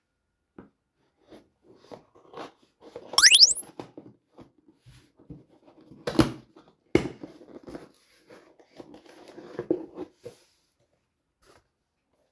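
A microphone's retail packaging being handled and opened: scattered rustles and taps, a loud squeak rising sharply in pitch about three seconds in, and two sharp knocks about halfway through and a second later.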